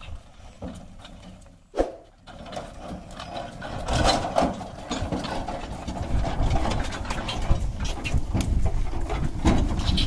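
Bullock cart drawn by two bullocks passing close: hooves plodding on the dirt track with the cart's wood and metal body rattling and its wheels rumbling, growing louder from about two and a half seconds in.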